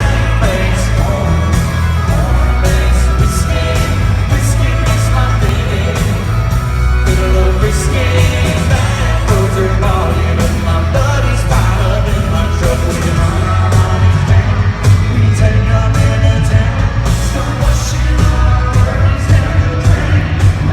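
Live country song performed by a full band with a singer, with heavy bass and steady drum beats, and yells and whoops from the audience.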